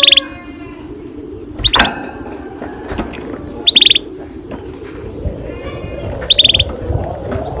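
Domestic canary giving short chirping calls, four times about two seconds apart. Each call is a quick upward sweep that breaks into a brief rapid trill, over a steady low background noise.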